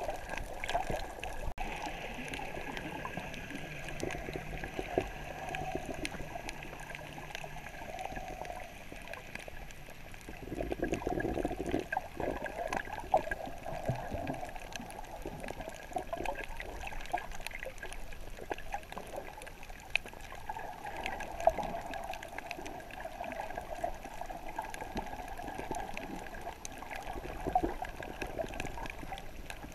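Muffled underwater water noise heard through a submerged camera's housing while snorkelling over a coral reef: an uneven wash with scattered faint clicks, swelling to a louder surge about ten seconds in.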